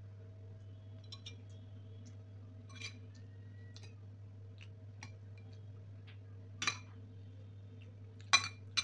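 Metal serving spoon clinking against ceramic plates as curry is ladled: scattered light clicks, then a sharp clink near the end of the second third and two louder clinks just before the end. A steady low hum runs underneath.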